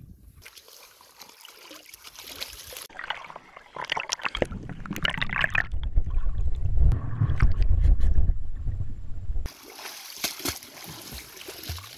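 Seawater splashing and sloshing as a swimmer in a wetsuit and fins slides off a paddleboard into the sea beside a sailboat's hull. Through the middle comes a few seconds of deep, muffled water rumble, which cuts off suddenly, leaving lighter splashing from kicking fins at the surface.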